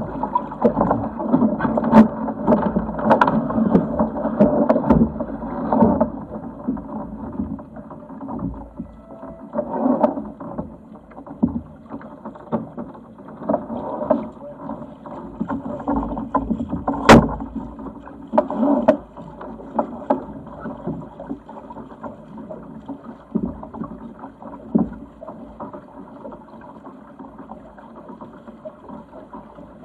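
Wind and water noise aboard a Sigma 8 m sailing yacht under way, a steady rushing that swells and eases, with a few sharp knocks, the loudest about two-thirds of the way through.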